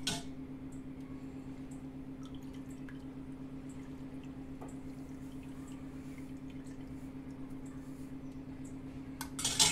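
Steel ladle pressing wet, freshly rinsed chhena (curdled milk) against a mesh strainer, with soft squishing and water dripping through into the pot below, over a steady low hum. Near the end comes one brief loud scrape.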